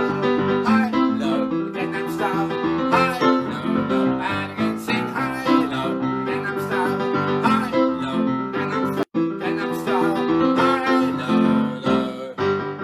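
Electric keyboard playing an upbeat dance tune with a steady beat, dropping out for an instant about nine seconds in.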